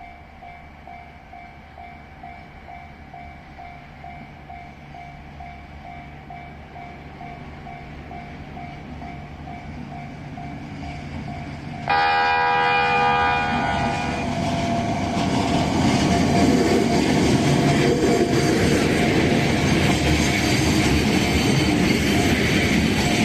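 A Japanese level-crossing warning bell rings its steady repeating ding while a train draws nearer and grows louder. About twelve seconds in, the train sounds a loud horn for about two seconds, then passes over the crossing with loud running noise.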